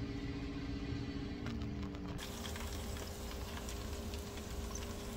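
Fried rice sizzling faintly in a wok over a steady hum. A low tone slides down just before the sound cuts, about two seconds in, to a brighter, steadier hiss.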